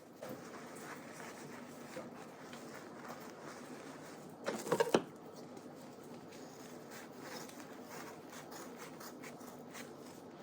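Quiet rubbing and light scratching handling noises, with a louder brief rustle about four and a half seconds in.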